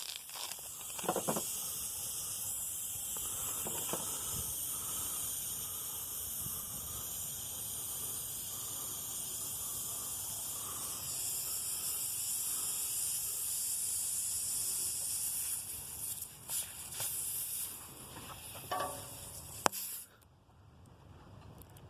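Air hissing steadily out of a punctured car tire at the nail hole during a tire-plug repair, with a few knocks from the tools. The hiss cuts off suddenly near the end.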